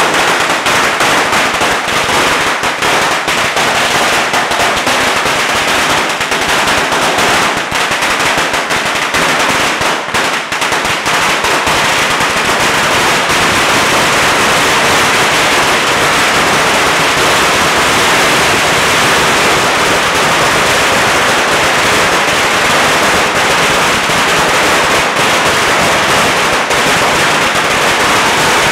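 A long string of Chinese firecrackers going off loud in a dense, unbroken rapid crackle of bangs, starting abruptly as the fuse reaches the string.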